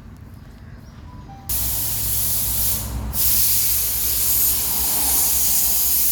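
A loud, steady hiss like spraying air or water starts abruptly about a second and a half in, breaks off briefly about three seconds in, then carries on.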